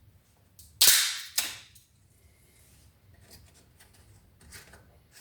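Two sharp knocks about half a second apart as scrap-wood shims are driven into the gap behind the frame, followed by faint light clicks.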